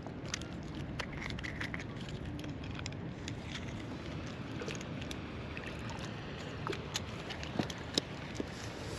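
Steady low outdoor rumble, with scattered small clicks and knocks from handling a fish gripper and a rope fish stringer as it is lowered into the water.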